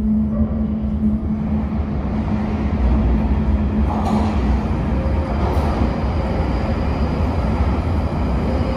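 Low, steady rumble of a London Underground train running through a deep-level tube tunnel, unseen from the platform, with a steady hum through the first half.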